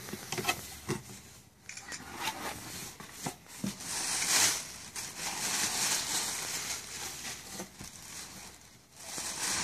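Tissue paper rustling and crinkling as hands dig through it inside a cardboard box, swelling and fading in waves, with a few light knocks against the cardboard.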